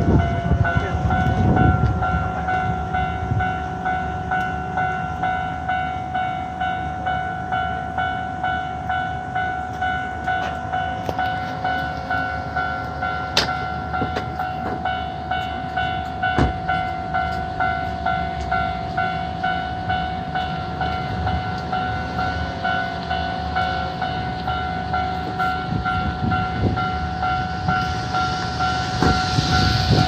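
Hankyu Railway level-crossing warning bell ringing in a steady, evenly repeated electronic ding, signalling that the crossing is closed.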